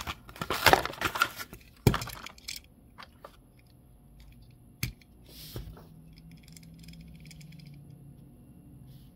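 Plastic blister packaging crinkling and tearing as a Hot Wheels diecast car is pulled from its card, followed by several sharp clicks and taps, the loudest about two seconds in and another near five seconds.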